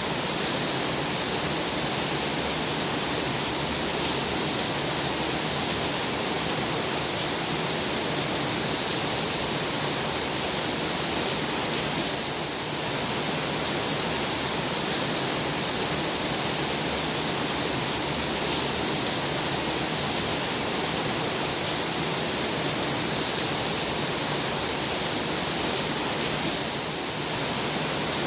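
Heavy rain falling steadily, an even wash of noise with no distinct drops standing out, dipping slightly twice.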